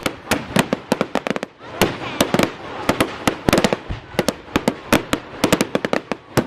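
Fireworks going off in quick, irregular succession: sharp bangs of bursting shells, several a second, some in rapid clusters, each with a short rumbling echo.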